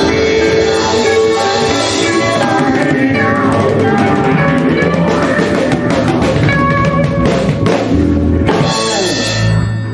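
A small blues band playing live: electric guitars over a drum kit, the song closing on a held final chord near the end.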